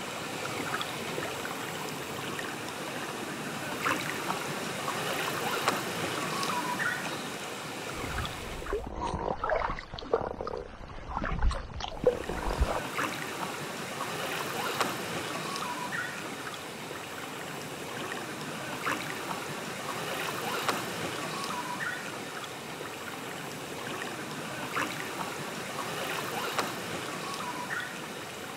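Lake water lapping, a steady wash of small waves, broken about eight seconds in by a few seconds of low rumble.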